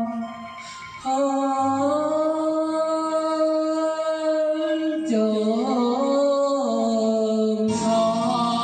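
Sung music: long held wordless vocal notes. The sound dips briefly at the start, comes back on a new note about a second in, shifts pitch with a wavering glide around five seconds in, and changes again near the end.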